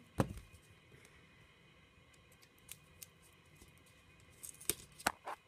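Pokémon cards and a foil booster pack being handled. There is one sharp knock just after the start, a quiet stretch, then small clicks and crinkles near the end.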